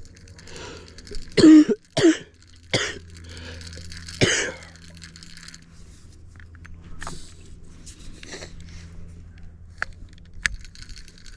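A person coughing hard four times in a row, the first cough the loudest, with a few fainter clicks afterward.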